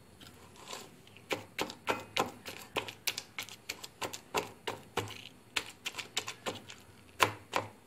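A spoon clicking and knocking against a metal bowl, about three sharp clicks a second starting about a second in, as boiled taro, onion, tomato and ginger are mixed and mashed together.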